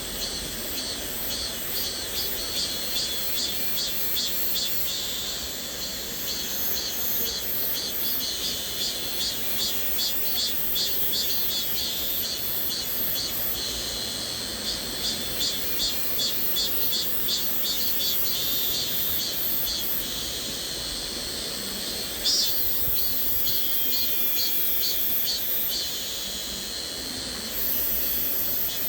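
Cicadas buzzing at a high pitch in a rhythmic pulse of a few beats a second, over the steady rush of a flowing stream. The high buzz swells abruptly about two-thirds of the way in and again near the end.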